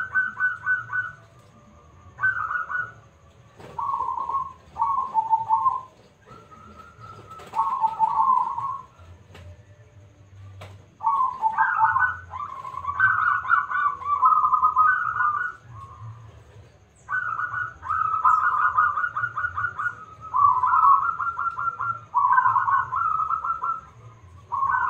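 Zebra dove (perkutut) cooing: phrases of quick rippling notes, each phrase lasting about a second, repeated with short pauses. There is a longer pause near the middle, then a longer run of phrases. A faint low hum sits underneath.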